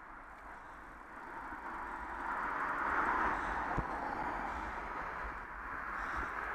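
Road traffic passing close by: the rushing tyre and engine noise of a vehicle swells up over the first three seconds and stays strong, with a single knock a little after the peak.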